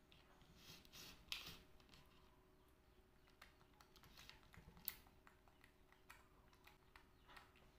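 Faint rustling and light clicks of a clear plastic cake tray being handled, with two sharper plastic clicks, one just over a second in and one near five seconds.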